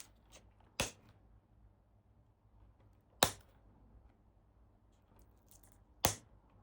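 Hand work on an e-bike wiring harness: three sharp snaps about two and a half seconds apart, with faint handling noise between.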